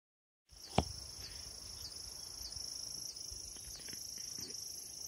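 Steady high-pitched insect chorus that swells and dips in a regular beat about one and a half times a second. A single sharp click near the start is the loudest sound.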